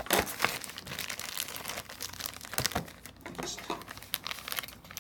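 Clear plastic wrapping around a tablet box crinkling and crackling irregularly as hands grip and handle it.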